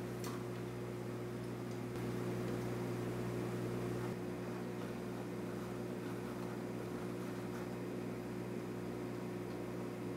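Steady low electrical hum of running aquarium equipment, an unchanging drone with a few fixed low tones over a soft hiss, slightly louder for a couple of seconds near the start.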